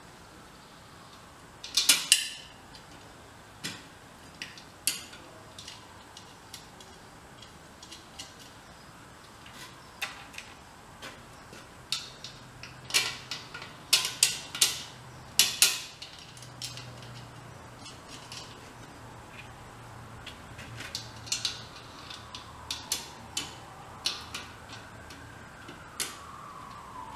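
Irregular metallic clinks and taps of bolts, nuts and hardware being fitted by hand to the domed lid of a steel air-tank gasifier, with a cluster of sharper clinks in the middle.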